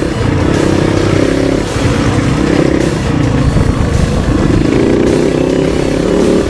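Kove 450 Rally's single-cylinder engine running under changing throttle, its pitch rising and falling several times.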